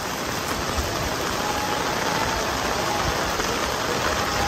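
Heavy rain falling steadily on stone paving and umbrellas: a constant, even hiss.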